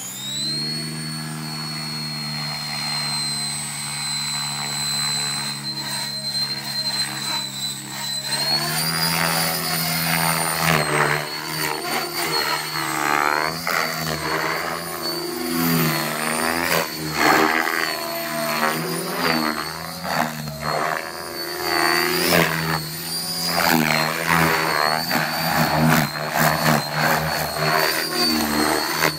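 Electric radio-controlled model helicopter spooling up, its motor whine and rotor tone rising in the first second and then holding steady. About eight seconds in the pitch steps up, and from then on the rotor noise repeatedly swells and wavers as it is flown.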